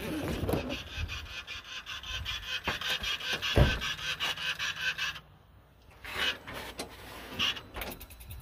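Handling noise from a hand-held phone being carried as someone climbs down from a truck cab and walks: a rapid rasping run of rubbing and scraping strokes, about five a second, with one heavy thump about three and a half seconds in, then a short lull and scattered scuffs.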